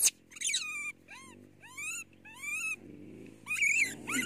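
An infant monkey giving a run of short, high-pitched cries, each rising and falling in pitch, about one every half second.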